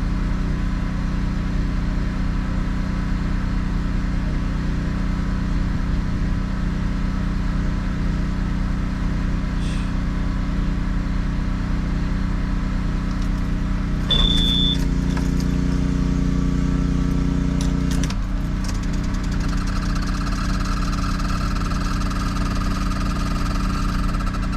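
A motor vehicle engine running steadily with a low, even hum. About two-thirds of the way through there is a click and a short high beep, then the engine runs louder for a few seconds before settling back.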